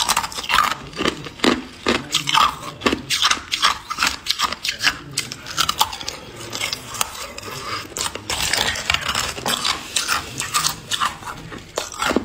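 Thin ice cubes being bitten and chewed: a dense run of sharp cracks and snaps, with a stretch of grinding crunch later on.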